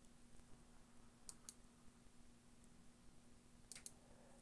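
Faint clicks at a computer, marking a step through weather-model forecast frames: two quick clicks about a second and a half in and two more near the end, over a faint steady hum.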